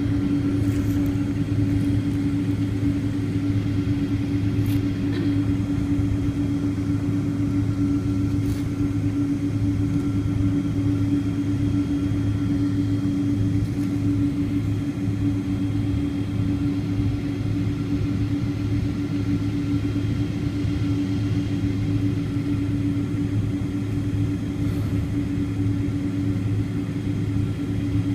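Jet airliner engines running at a steady low power, a constant drone with a deep hum and a steady mid-pitched tone that neither rises nor falls.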